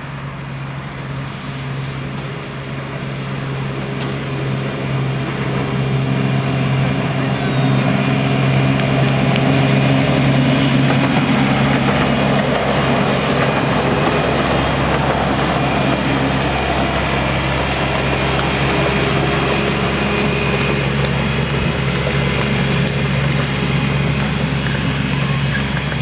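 Miniature railway locomotive's engine running steadily with a constant low hum, growing louder over the first ten seconds or so and then holding level.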